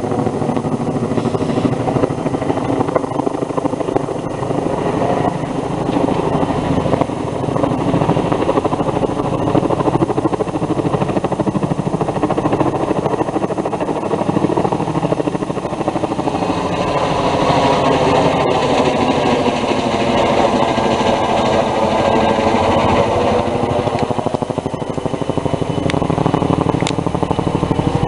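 Logging helicopter's rotor beating in fast, steady pulses over its engine whine. It is a little louder in the second half, where the pitch shifts as it passes near.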